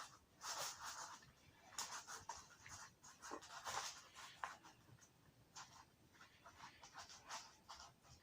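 Faint, irregular scratching and rubbing as a lump of microwaved toothpaste slime is handled and scraped.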